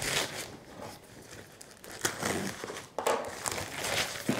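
Plastic courier mailer bag crinkling and rustling as a cardboard box is worked out of it, faint at first and picking up about two seconds in, with a sharper rustle about three seconds in.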